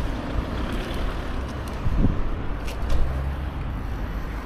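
Steady low rumble of wind on the action camera's microphone and tyre noise from a bicycle riding along a paved path, with city traffic, and a couple of brief louder bumps partway through.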